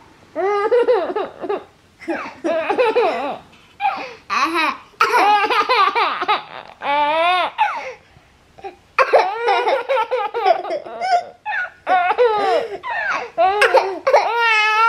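A baby laughing in repeated bursts of high-pitched laughter, with short pauses between them.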